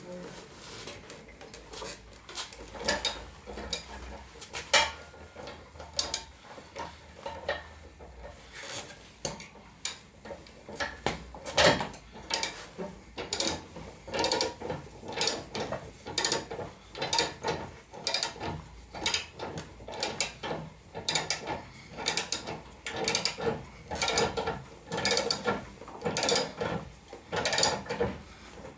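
Motorcycle lift being raised under a Harley-Davidson Road King, a long series of ratcheting mechanical clicks and clanks. Irregular at first, it settles into a steady rhythm of about two strokes a second.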